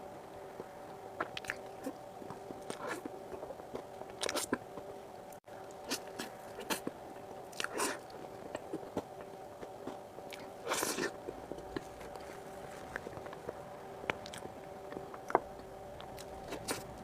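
Close-miked eating of soft whipped cream cake: scattered wet mouth clicks, smacks and chewing noises, a few louder, over a faint steady hum.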